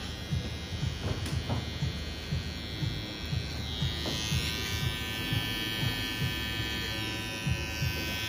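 Cordless T-blade hair trimmer buzzing steadily while it edges a forehead hairline, over background music with a steady low beat.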